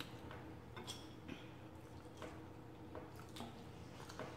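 Faint eating sounds: chewing a mouthful of salad, with a few scattered soft clicks of a metal fork picking through the greens in a bowl.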